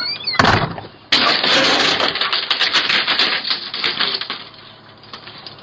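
Electric bug-zapper racket going off: a sharp snap about half a second in, then a dense run of rapid crackling snaps for about three seconds that dies down.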